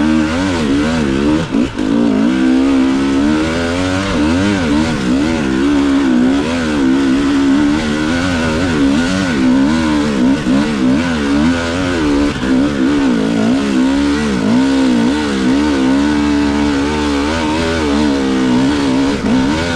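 Enduro dirt bike engine heard from on the bike, its revs rising and falling constantly with the throttle as it is ridden over a rough, rocky trail, with a few brief drops when the throttle is closed.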